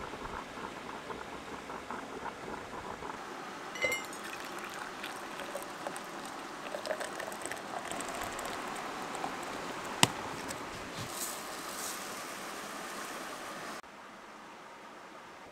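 Stovetop percolator bubbling and gurgling at the boil on a propane camp stove. This is the brew that spat its grounds up through the filter basket. A short high squeak comes about four seconds in, a single sharp click about ten seconds in, and the sound drops abruptly quieter near the end.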